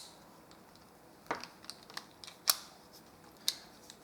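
Combination dials of a Blusmart five-digit cable bike lock being turned by hand: four sharp clicks, about a second apart, with fainter ticks between.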